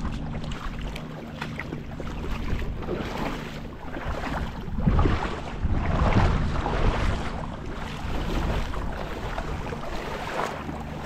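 A tour boat's engine idles with a steady low hum, under wind buffeting the microphone. The wind gusts louder about five and six seconds in.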